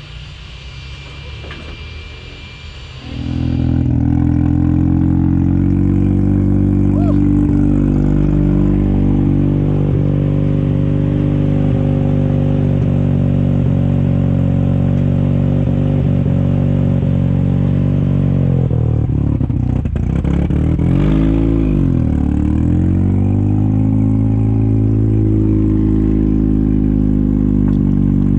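1983 Mazda RX-7's 12A rotary engine running loud, coming in about three seconds in; around two-thirds of the way through its pitch drops and climbs back, as with a rev change or gear shift.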